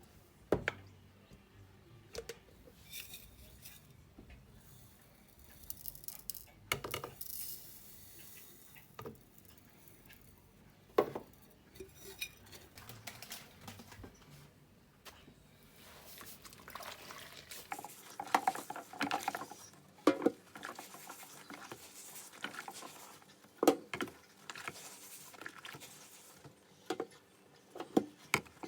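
Dishes being washed by hand in a sink of water: irregular clinks of crockery and cutlery with splashes and drips, busier in the second half.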